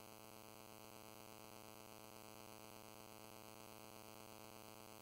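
Near silence: a faint, steady buzz with hiss that never changes.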